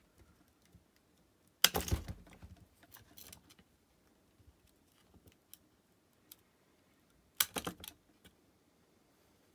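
Small plastic parts of a portable MP3 player clicking and rattling as its internal frame is prised out by fingernail: a burst of clicks about two seconds in, a few light ticks, then another burst of clicks later on.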